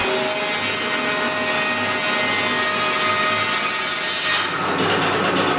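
Band sawmill blade running through a log in a lengthwise cut: a steady, loud sawing hiss with a whine in it. The high part of the hiss eases about four seconds in.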